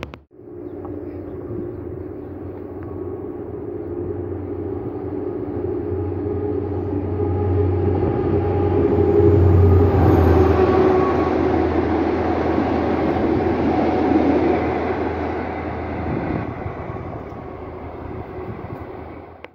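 Diesel locomotive engines droning as a train approaches on the line. The drone grows louder to a peak about halfway through, then eases off.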